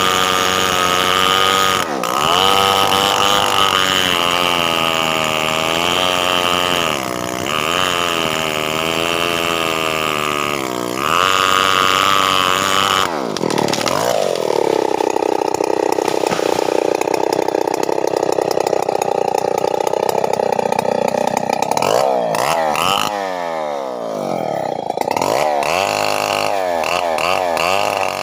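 Stihl 070 two-stroke chainsaw running at high revs, its pitch sagging and recovering several times. About halfway it settles to a lower, steady pitch, then revs up and down quickly over and over near the end.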